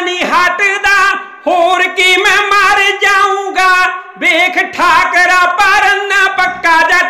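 Unaccompanied Punjabi kavishri singing: a high male lead voice drawing out long, ornamented phrases with vibrato, pausing briefly for breath about a second in and again around four seconds.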